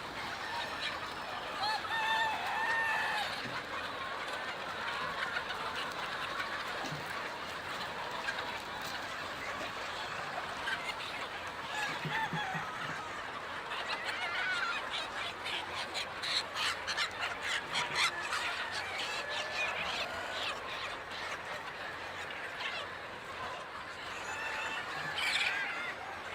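A large flock of country chickens clucking and calling all at once in a dense, steady chorus, with runs of rapid clucking around the middle.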